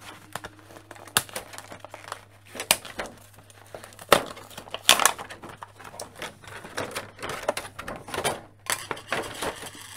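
Clear plastic blister tray from an action-figure box crinkling and crackling as it is handled, with irregular sharp snaps, the loudest a few seconds in.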